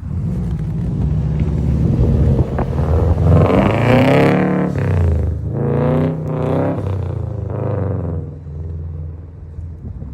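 An engine running, revved up several times, its pitch climbing and falling back with each rev.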